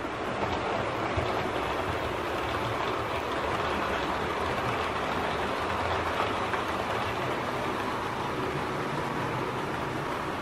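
OO gauge model train with Pullman coaches running on the layout's track: a steady rolling noise of the wheels on the rails.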